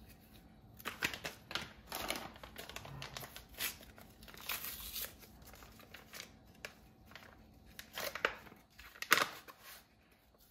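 Paper packets of powdered chicken gravy mix being torn open, crinkled and shaken out, in irregular short rustles and crackles, with a sharper crackle near the end.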